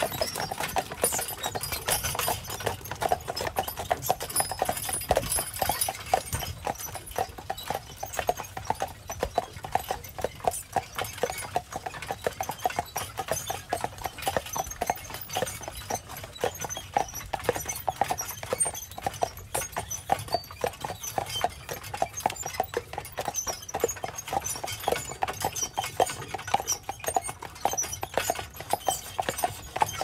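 Steady clip-clop of a pair of carriage horses' shod hooves walking on a packed dirt trail, a continuous run of quick, overlapping hoofbeats.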